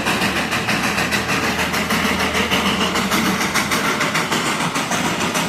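Darjeeling Himalayan Railway toy train's locomotive running steadily, with a fast, even beat in its sound.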